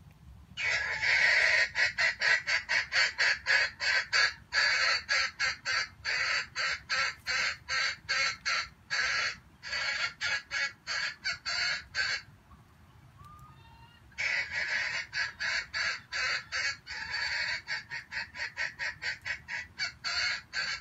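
Wild junglefowl calling: rapid, harsh calls repeated about four times a second in a long run. The calls break off about 12 s in and start again after a pause of about two seconds.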